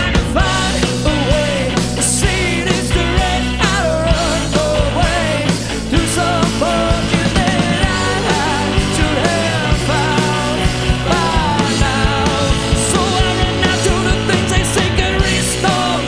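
Rock band playing live, with a steady drum beat under full band accompaniment and a lead melody that bends and slides in pitch.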